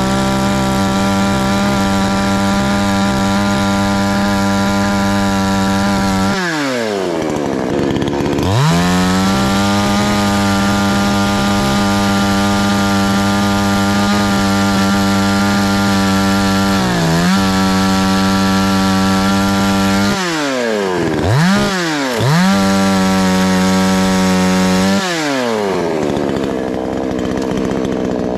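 Two-stroke chainsaw held at full throttle, revved and let drop back to idle several times: a long high-revving stretch falls away about six seconds in, climbs again two seconds later, dips briefly midway, drops again, gives two quick blips of throttle, then runs high once more before settling back to idle near the end.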